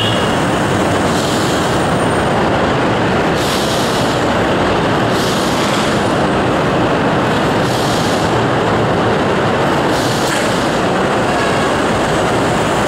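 Manila LRT Line 1 first-generation light rail train running in along the platform and slowing to a stop: a loud, steady rumble with brief bursts of high hiss about every two seconds.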